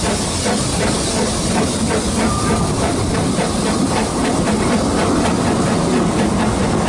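A narrow gauge steam locomotive pulling away with its train. Its exhaust chuffs quicken as it gathers speed, over a steady hiss of steam and the rumble of the carriage.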